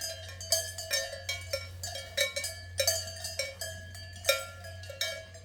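Swiss cowbells worn by cows clanging irregularly, several bells with different tones striking and overlapping a few times a second.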